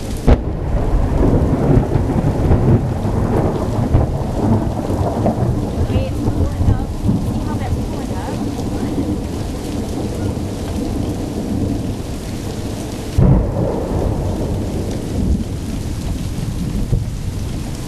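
Thunder in a thunderstorm: a sharp crack just after the start rolling into a long low rumble, and another sudden clap about thirteen seconds in, over steady rain.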